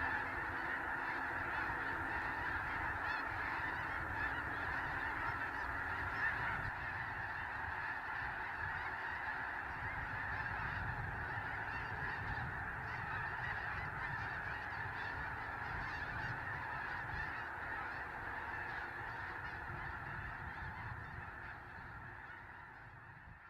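A huge flock of snow geese calling all at once: a dense, steady chorus of overlapping honks that fades out over the last few seconds.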